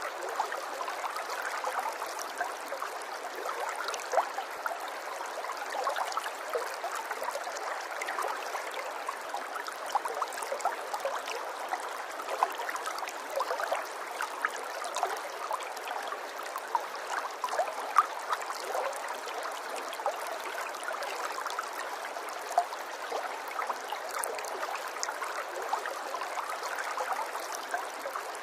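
Flowing water trickling and gurgling, like a small stream over stones. It runs steadily, with many small splashes and drips.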